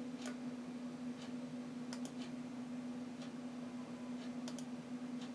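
Computer mouse button clicks selecting and opening an icon: a quick double-click about two seconds in, another about four and a half seconds in, and more clicks near the end. Under them a steady low hum and faint ticking about once a second.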